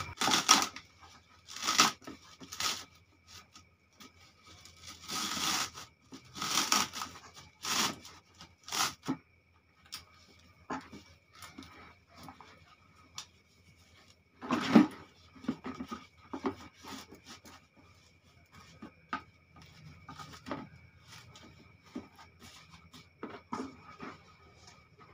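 A cloth sock rustling and scraping as it is stretched over a plastic bottle filter and rubbed against a thin plastic lid, in irregular bursts with small clicks and taps between.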